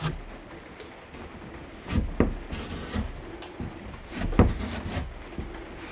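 A few dull knocks and bumps of handling inside a boat. The loudest come about two seconds in and again about four and a half seconds in, over a steady faint background noise.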